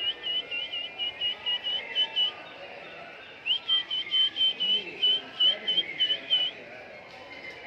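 Rapid runs of short, high whistled notes, about four a second, each note nearly the same pitch. One run ends a couple of seconds in, and after a pause of about a second another run plays for about three seconds.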